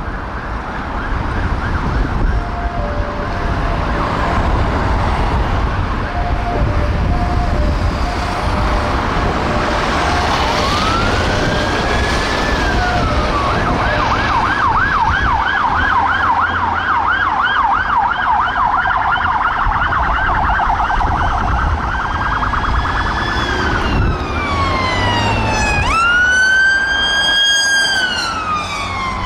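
UK police car sirens sounding over road traffic noise: a wail rises and switches to a fast yelp, about three cycles a second, then changes back to slow rising and falling wails, the loudest one near the end.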